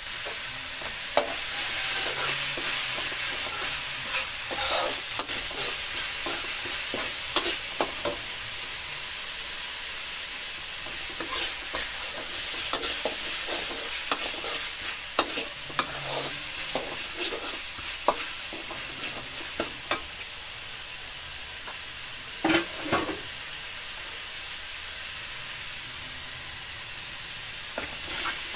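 Ground chilli-and-tomato spice paste sizzling in an aluminium wok while a metal spatula stirs and scrapes it: a steady frying hiss with frequent light clicks of the spatula on the pan, and a couple of louder knocks a little past the middle.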